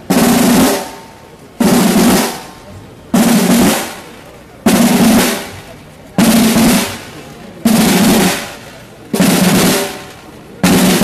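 Procession drum corps of snare drums and bass drums playing the marca paso, the slow cadence that sets the step for the carriers of the procession float. A burst of drumming starts suddenly about every second and a half, sounds for about a second and fades before the next, eight times over.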